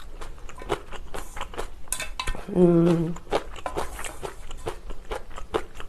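Close-miked eating at a table: many quick, irregular clicks of utensils against a bowl, mixed with mouth sounds of chewing ramen and kimchi. A short hummed "mm" comes about two and a half seconds in.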